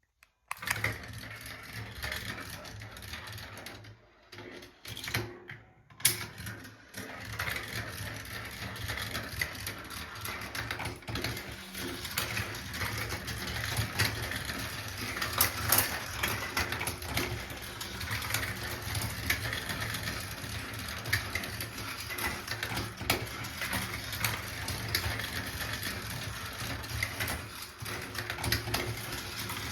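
Marbles rolling and clattering through a Gravitrax plastic marble run, with many sharp clicks as they drop onto and knock against the track pieces, one loud click about six seconds in.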